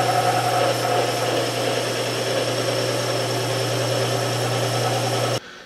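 South Bend 13-inch lathe running under power while a boring bar takes an internal cut in the spinning workpiece: a steady machine hum with cutting noise over it. It cuts off abruptly near the end.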